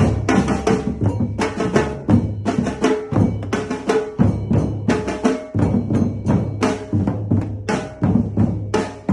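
Djembe hand-drum group playing the Afro valse rhythm: a dense run of fast, sharp hand strokes over low bass-drum tones.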